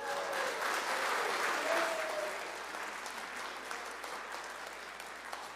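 Audience applauding in a church sanctuary, slowly dying away.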